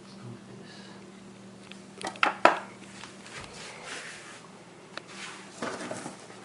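Hard parts of a disassembled hoverboard being handled, with a quick cluster of clinks and knocks about two seconds in, a single click near five seconds and a short scrape near the end, over a steady faint hum.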